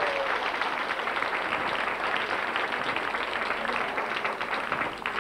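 Audience applauding steadily, dying away just at the end.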